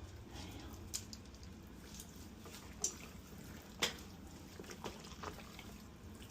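Faint wet squishing and a few short sharp clicks of hands rubbing seasoning into a raw turkey, the loudest click just under four seconds in.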